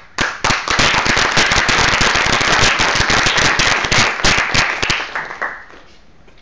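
Audience applauding, starting sharply and dying away about five seconds in.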